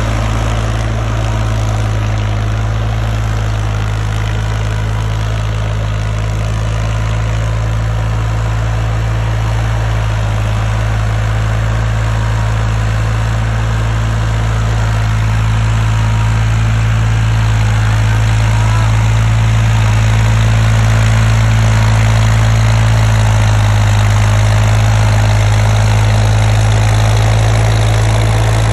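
New Holland 3600 tractor's three-cylinder diesel engine running steadily under load while pulling a leveler across a tilled field, growing a little louder past the middle.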